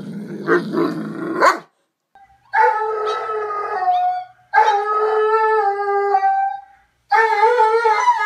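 Doberman howling, three long drawn-out howls, each held for a second and a half to two seconds with short breaks between, heard from down a hallway. They start after a second and a half of muffled noise. The howling comes from a dog missing its owner.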